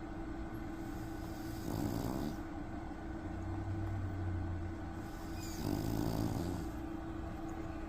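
Dog snoring in its sleep: two snores about four seconds apart, each lasting under a second, with a low breathing sound between them, over a steady background hum.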